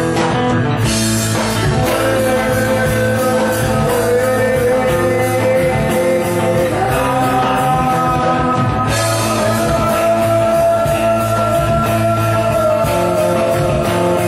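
Live rock band playing: electric guitars and bass guitar over drums, with long held notes and a bright cymbal wash that breaks off briefly about nine seconds in.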